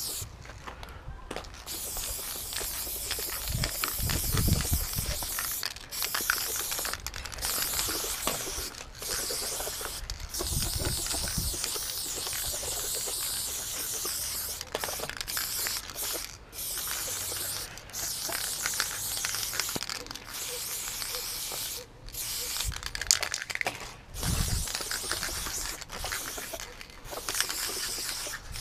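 Aerosol spray paint can hissing in long bursts with short breaks between strokes, as white paint is sprayed onto a brick wall to fill a throw-up. A few brief low rumbles come in now and then.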